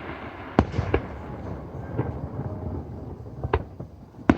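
Fireworks display: aerial shells bursting with sharp booms, about five at irregular intervals, the loudest near the end.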